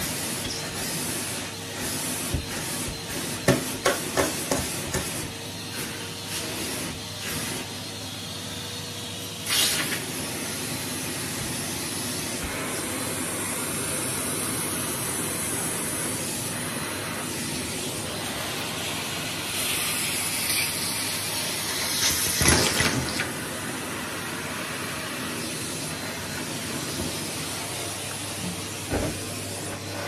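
Numatic Henry vacuum cleaner running steadily, its suction hissing through the hose over a low motor hum. A run of sharp clicks and knocks comes a few seconds in, and there are brief louder surges of suction near 10 s and about two-thirds of the way through.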